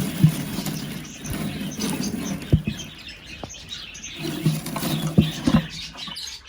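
Small aviary birds chirping and fluttering, with scattered clicks and knocks as wooden nest boxes are handled.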